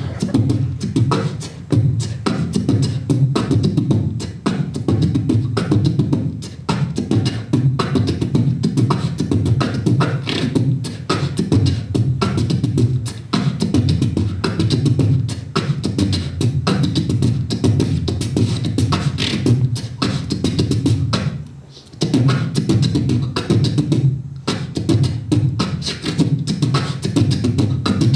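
Human beatboxing into a handheld microphone: fast percussive clicks and snaps over a continuous low bass, with one brief break about three quarters of the way through.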